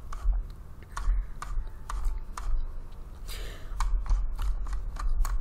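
Irregular sharp clicks from computer input, a mouse and keyboard being worked to scroll through a document, a couple of clicks a second over a steady low hum.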